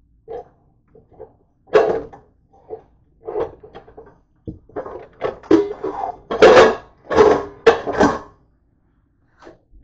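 Dishes clattering as they are pulled out of a dish rack: a plastic colander and a ceramic bowl knocking against other dishware in a string of irregular knocks and rattles, loudest over the last few seconds.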